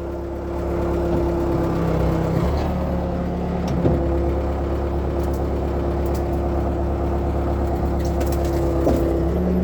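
Case 680G backhoe's diesel engine running under hydraulic load, most likely as the stabilizer legs are set down. It holds a steady hum, and its note shifts twice in the first four seconds as the load changes.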